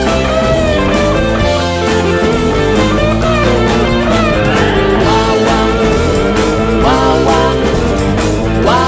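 Instrumental passage of a psychedelic rock band recording: electric guitar lines with several rising slides over bass and drums, no vocals.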